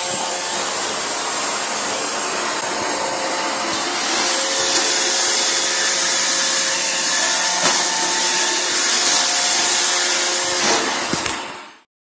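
Roomba 676 robot vacuum running: a steady whirring hiss of its vacuum motor and brushes with a few faint steady whining tones, broken by a few light knocks. It cuts off abruptly near the end.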